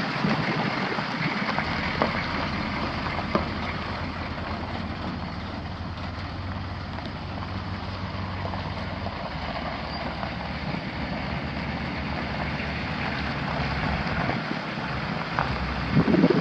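A 1985 Chevrolet D30's 6.2-litre diesel V8 engine running steadily, over a noisy hiss.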